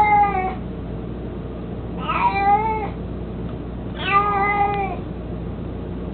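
An elderly domestic cat meowing: the end of one drawn-out meow right at the start, then two more meows about two seconds apart, each just under a second long and starting high before levelling off.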